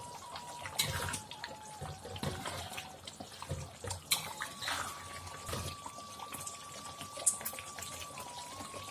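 Thick coconut-milk curry bubbling as it simmers down in a metal wok, while a metal spatula scrapes and knocks against the wok as it is stirred, sharpest about four seconds in. A faint steady tone runs underneath and shifts in pitch a couple of times.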